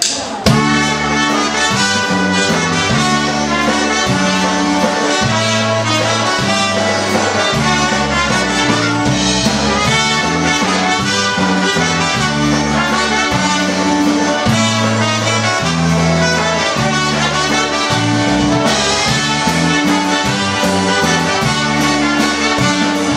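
Live polka band playing a waltz: trumpets lead the melody over a concertina, bass guitar and drums, with a steady oom-pah bass line.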